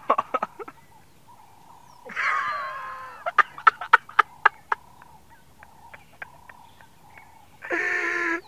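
Animal calls: a drawn-out harsh call about two seconds in that falls in pitch, then a quick run of short sharp clicking notes, then a second drawn-out call near the end.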